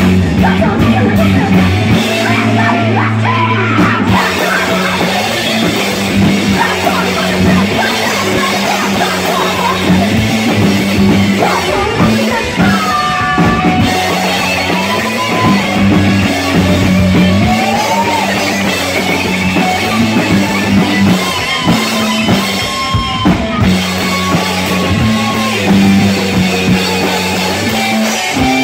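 Live rock band playing: electric guitars and a drum kit, with a low riff that repeats steadily through the song.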